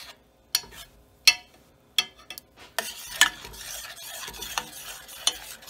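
Metal spoon stirring melted chocolate and butter in a stainless steel saucepan, clicking sharply against the pan about seven times at irregular spacing, with a scraping rasp from about halfway in.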